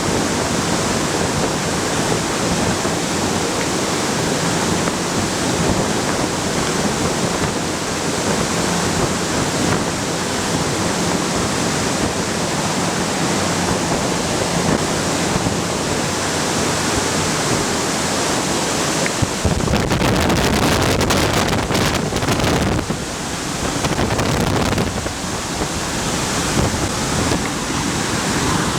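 Steady loud rush of air driven by a VOD-40 mine ventilation fan. For a few seconds about two-thirds of the way in, the wind buffets and crackles on the microphone.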